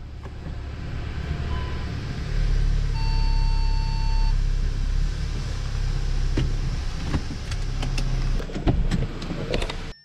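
Car engine running, heard from inside the cabin as the car is shifted into reverse and moved. A single beep of about a second sounds partway through, and there is a run of clicks and knocks in the last few seconds.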